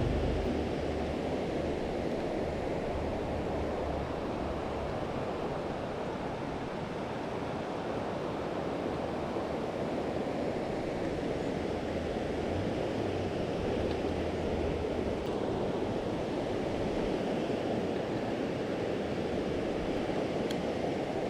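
Steady rushing of a river's flowing water, with a faint low rumble near the start and again about two-thirds of the way through.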